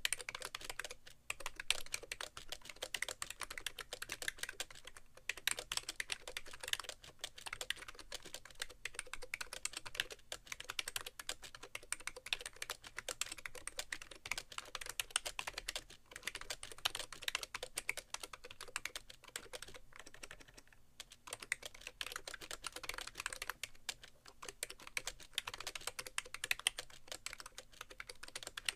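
Fast continuous typing on a BTC 5100c (SIIG Minitouch Plus) mini keyboard with rubber-dome keys on sliders, resting on a bare keyboard tray. It makes a dense stream of key clacks, with short pauses every few seconds.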